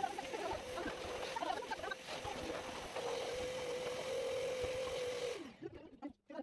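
Canister vacuum cleaner running with a steady whine while its nozzle is worked over the rug, then switched off about five and a half seconds in, its motor whine dropping as it winds down. A few light knocks follow.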